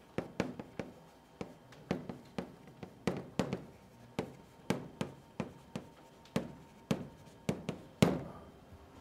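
Chalk writing on a blackboard: a run of sharp taps and short strokes, about two or three a second, with a louder tap about eight seconds in.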